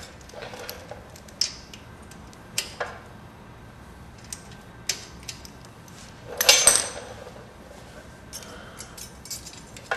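Socket wrench and metal hand tools clicking and clinking on a Honda 250's valve adjuster and locknut while the valve clearance is reset after being found too tight. Scattered light ticks, with a louder metallic clatter about six and a half seconds in.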